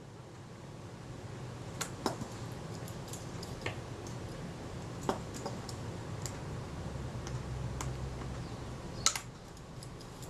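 Small scattered metal clicks and taps, about half a dozen in all, from fingers pressing and working a Synchro-Compur leaf-shutter assembly, straightening its aperture-setting ring so the lever is not so tight. A faint low hum runs underneath.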